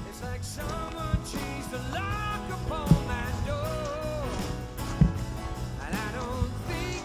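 Background song: a rock-style track with a sung melody over a steady drum beat.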